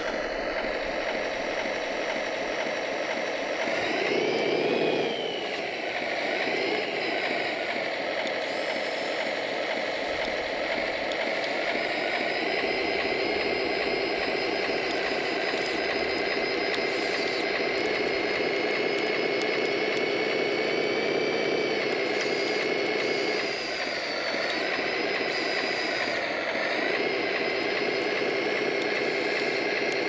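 Electric 5840-555 worm-gear motors of a 3D-printed 1:14 scale RC bulldozer whining steadily as the model runs. The pitch shifts briefly about four seconds in and again around twenty-four seconds in, as the motors change speed.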